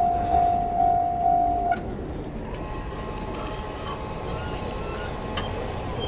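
Japanese railway level-crossing warning bell ringing its rapid repeating electronic ding, about two strokes a second. It stops about two seconds in as the crossing clears, leaving low street background.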